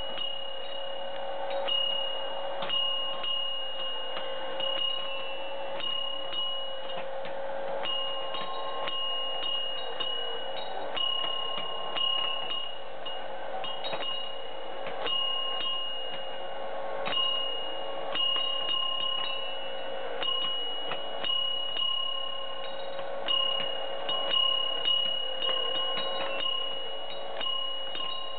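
A mechanical automaton of Tibetan musician figures striking small brass bowls and cymbals. Repeated, unevenly spaced high metallic strikes ring on like chimes, over a steady lower tone.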